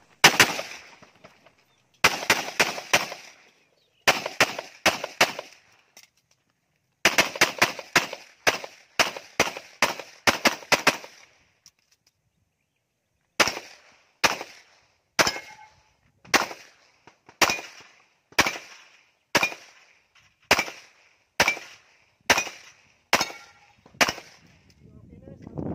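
Handgun shots fired in strings: quick clusters of several shots with short pauses, then after a silent gap of about two seconds, a steadier run of single shots about once a second. Each shot is sharp, with a short echo trailing after it.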